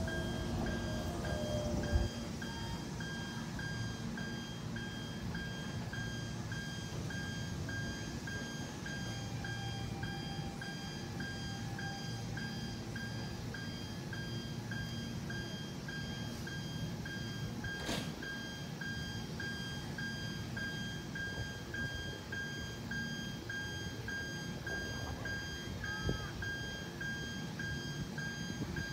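A repeating electronic warning tone, about two beeps a second, over a train's low rumble as it pulls slowly away through the station points. A single sharp clank comes about two-thirds of the way through.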